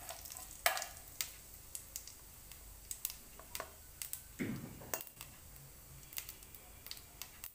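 Cumin seeds crackling in hot oil in a kadhai during tempering: scattered sharp pops a few times a second, with one brief swish about halfway through.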